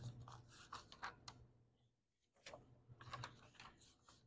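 Faint scratching and rubbing with scattered light clicks, as of something being handled.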